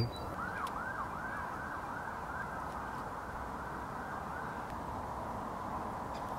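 A faint siren in a rapid yelp, rising and falling about three times a second, fading out about four and a half seconds in, over steady outdoor background noise.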